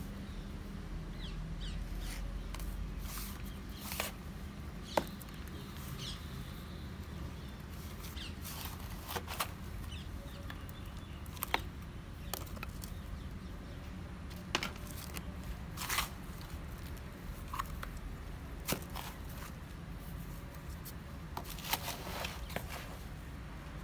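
Hands pressing and crumbling loose potting soil around tree roots in a plastic pot, with more soil tipped in from a plastic bag. It gives scattered small crackles and ticks, a few sharper ones, over a steady low background hum.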